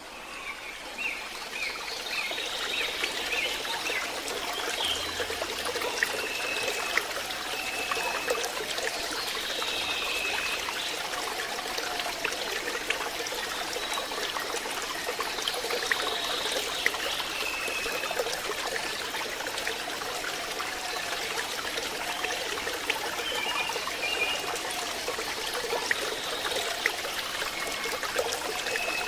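Water trickling steadily, dense with small dripping and splashing clicks, with short high chirps now and then.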